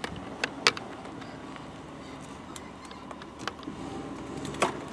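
Chevrolet Silverado pickup's engine running at low speed as the truck is manoeuvred in reverse, with a few short sharp clicks over the steady hum.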